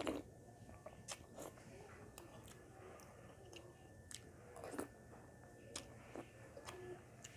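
Quiet chewing and mouth sounds from a person eating corn rice and a soupy vegetable dish by hand, with scattered small clicks.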